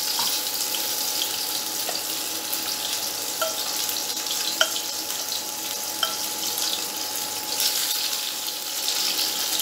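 Fish slices sizzling steadily as they shallow-fry in hot mustard oil in a nonstick pan, with a few light clicks of a slotted spatula against the pan.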